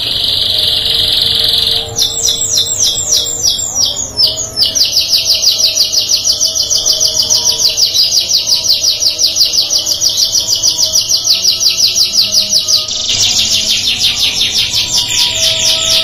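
Domestic canary singing: a buzzing roll for the first two seconds, then a string of falling notes, then a long, fast trill of repeated notes that changes to a new phrase about 13 seconds in.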